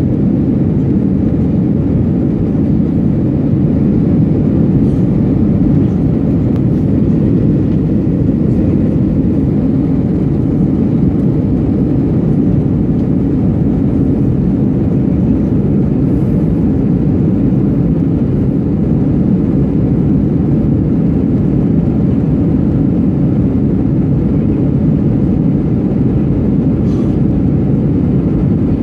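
Cabin noise of an Airbus A320 climbing after takeoff: jet engines and rushing air heard through the fuselage as a loud, steady low rumble.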